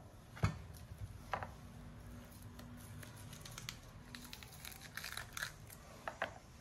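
Faint crinkling and tearing of the outer layer being peeled by hand off a fresh spring onion, with scattered small crackles and one soft knock about half a second in.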